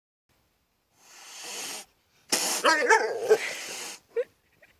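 Close-range animal sounds from a cat facing a horse: a soft breathy blow about a second in, then a louder hissing burst with a short wavering cry, which fits a cat hissing and growling at the horse.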